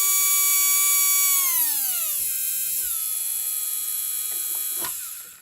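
Kyosho LeMans 480 Gold brushed electric motor, fitted with new brushes, running with a steady high whine, then falling in pitch in two steps from about a second and a half in, fading and stopping with a click at the very end. It runs smoothly, which the builder takes as a good sign.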